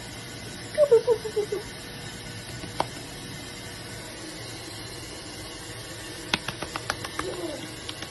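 Havanese puppies at play: a quick run of short, falling yips about a second in, then a cluster of small sharp clicks and a brief whine near the end.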